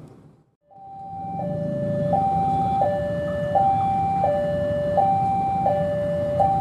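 Railway level-crossing warning alarm sounding a two-tone hi-lo signal that warns of an approaching train, switching evenly between a higher and a lower tone about every three-quarters of a second. It comes in about a second in, after a brief dip to silence.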